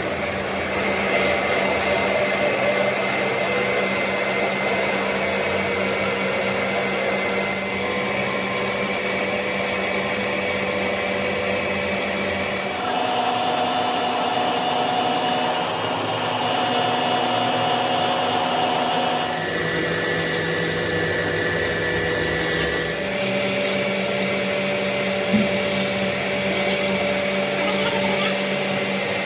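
Workshop machinery running steadily: a motor's hum and whine over a noisy wash. Its pitch and tone shift abruptly several times, with one short click near the end.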